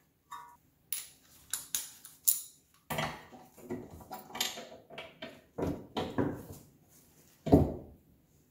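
Brake pads being worked out of a rear disc-brake caliper bracket: a run of short metallic clinks and scrapes as the pads shift against the bracket, with a louder clunk near the end.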